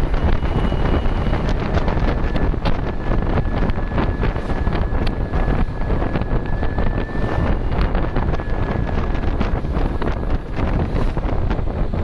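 Ashok Leyland turbo-intercooled diesel bus engine pulling hard uphill, with a steady high-pitched turbo whistle that sets in about two seconds in and holds for about five seconds. Wind buffets the microphone, and frequent rattles run throughout.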